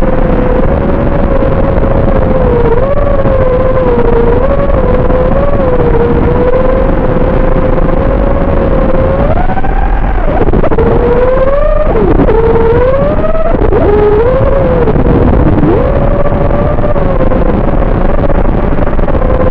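FPV racing quadcopter's motors and propellers whining at a steady pitch, then swinging sharply up and down from about halfway through to three-quarters through as the throttle is worked, before settling back to a steady whine.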